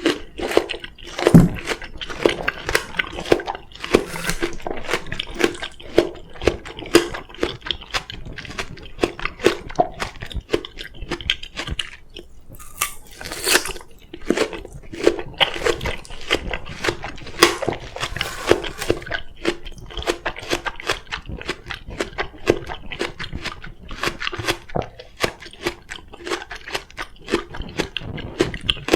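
Close-miked chewing of crisp raw oriental melon (chamoe), a steady run of wet crunches and crackles several times a second.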